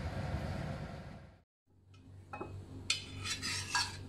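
Water with plant leaves boiling in a pot on a gas burner, a steady bubbling rush that cuts off suddenly about a second and a half in. Then a metal ladle clinks against the pot several times, the sharpest about three and four seconds in.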